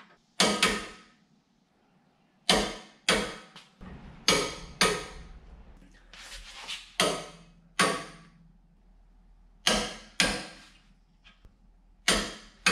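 Sharp metallic clicks from a long-handled wrench tightening a trailer hitch receiver's 17 mm mounting bolts into a steel frame crash bar, about a dozen in all, several coming in pairs about half a second apart, each ringing briefly.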